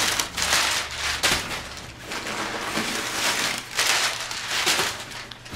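Crumpled packing paper crinkling and rustling in uneven surges as wads of it are pulled out of a new backpack diaper bag.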